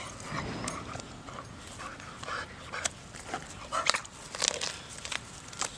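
A pit bull chewing raw chicken, with irregular sharp crunching clicks from its jaws.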